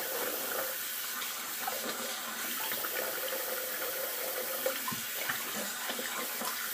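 Water tap running steadily into a bathroom sink.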